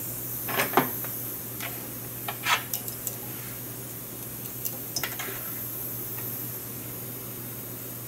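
Light clicks and clinks of metal tools handled at a soldering bench: a soldering iron set into its stand and wire worked in a helping-hands clamp. A sharp pair of clicks comes within the first second, with a few more about two and a half and five seconds in, over a steady low hum.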